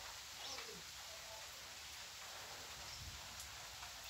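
A bird calling briefly about half a second in, with a few fainter calls later, over a faint steady hiss of light rain.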